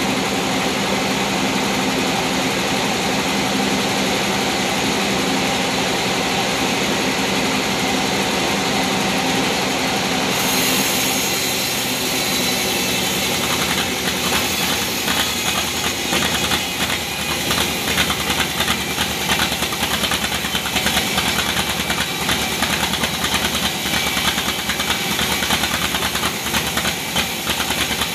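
Band sawmill running steadily, its motor and band blade turning. About halfway through, the sound turns rougher, with a fast rattle as the blade cuts along the log.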